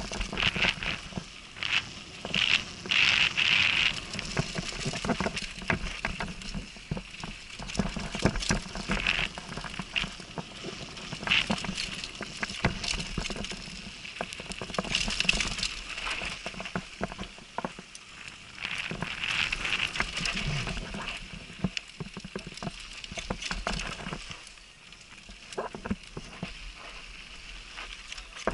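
Downhill mountain bike ridden fast down a dry dirt trail: tyres scrubbing and crunching over dirt and gravel, with constant clattering and rattling over bumps and bursts of louder hiss in places.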